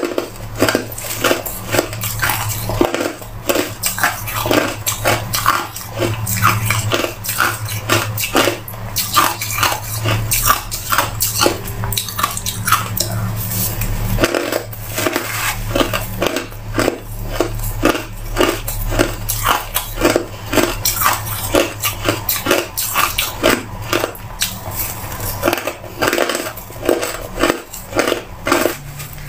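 White crushed ice crunching as it is bitten and chewed, heard close up: a dense, unbroken run of crisp crunches, several a second.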